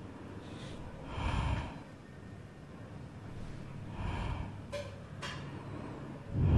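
Metal tongs turning chicken pieces in a karahi while the steaming liquid is cooked off, with soft scraping swells and two sharp clicks of the tongs about five seconds in. A louder low rush starts right at the end.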